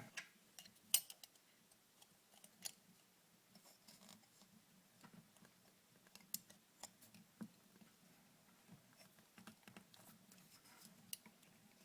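Faint, scattered clicks and taps of a door handle's metal parts being handled as its return spring and handle are fitted back on, over near silence.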